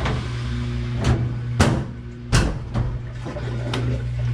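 GE stackable washer filling with water, a steady hum under the water noise, with several sharp knocks and clunks as the washer's lid is lowered and its panels handled; the loudest two come about one and a half and two and a half seconds in.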